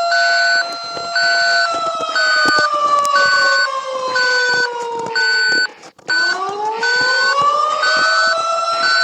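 Emergency alert alarm tones: a steady beep repeating about once a second over a two-tone siren that slides slowly down in pitch, cuts out for a moment about six seconds in, then climbs back up.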